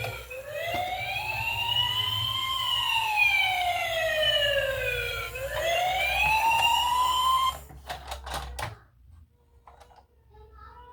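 Electronic wailing siren of a toy emergency vehicle, sliding slowly up and down in pitch with one full rise and fall about every five seconds. It cuts off suddenly about three quarters of the way through, and a few sharp clicks and knocks follow.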